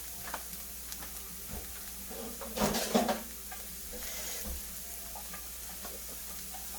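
Carrots and scallions sizzling in hot oil in a frying pan, stirred with a utensil that gives small clicks, and a louder burst of noise about two and a half seconds in.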